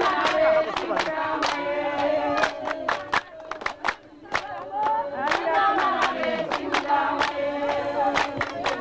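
A group of women singing together in unison, with hand claps about twice a second. The singing drops away briefly about four seconds in, then comes back.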